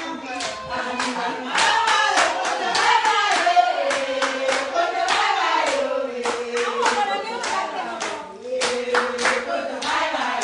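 A group of women singing together and clapping their hands in a steady rhythm, a few claps a second; near the end the singing settles on a held note.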